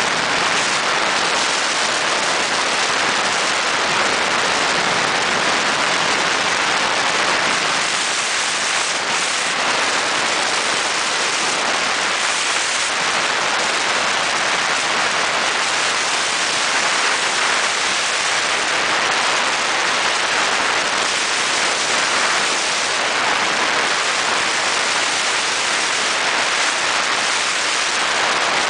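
Speedboat running at speed across open water: a steady rushing hiss of water spray and wind past the hull, with no letup.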